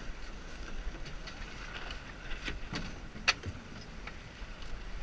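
Small sailboat under way, with wind rumbling on the microphone and a steady rush of noise, broken by scattered light clicks and one sharp knock a little over three seconds in.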